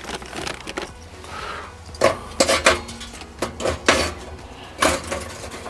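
Lumps of restaurant-grade charcoal clinking and clattering as they are dropped by hand into a metal chimney starter, several sharp separate clinks spread over a few seconds.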